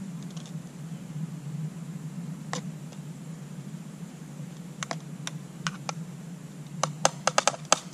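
Metal utensil clicking against a metal mess kit pot: a single click, a few scattered ones, then a quick run of about eight clicks near the end.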